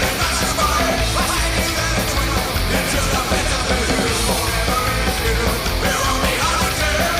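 Loud punk rock music with a singer.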